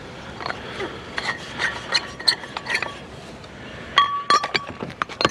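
Glass light-fixture globes clinking and knocking together as they are handled, with one brief ringing clink about four seconds in.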